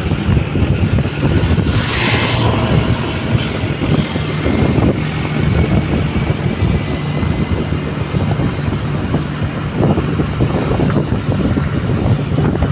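Steady running noise of a vehicle on the road, with a constant low engine hum and wind rumbling on the microphone; about two seconds in, a brief louder hiss.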